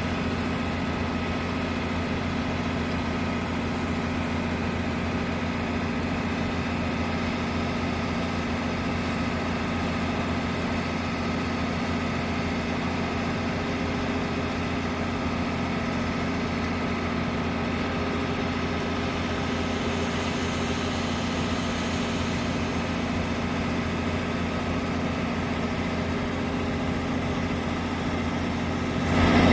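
An engine idling steadily, its low hum holding one even pitch.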